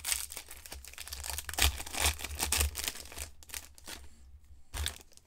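Plastic wrapper of a trading card pack crinkling and tearing as it is opened by hand, dense crackles for about three and a half seconds, then quieter with one last short rustle near the end.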